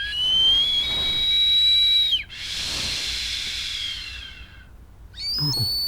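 Stovetop kettle whistling at the boil: a shrill whistle rises and holds for about two seconds, then cuts off into a hiss of steam that fades. A second, higher whistle starts near the end.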